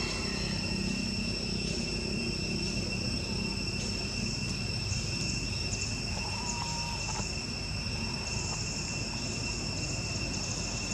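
Insects singing in a steady, high-pitched outdoor chorus, over a low rumble.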